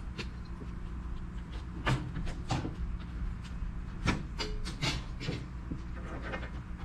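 Scattered metallic knocks and clunks as a steel utility trailer and its gas pump load are handled for unloading, about half a dozen sharp hits with the loudest about four seconds in, over a steady low hum.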